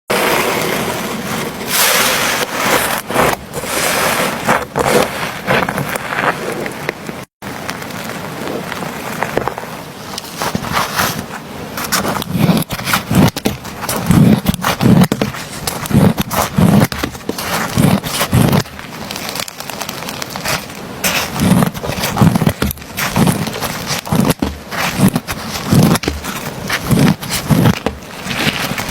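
Soft slime being squished and pressed by hand: sticky crackling and scraping, then from about halfway in, repeated squelching pops roughly once a second.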